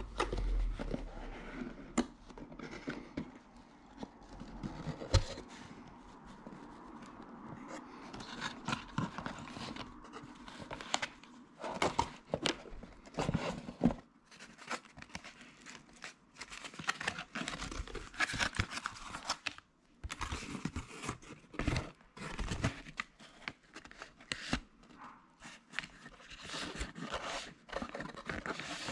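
Cardboard box being opened and handled, with the clear plastic sleeve around a crank-arm power meter crinkling; irregular rustles, scrapes and short taps.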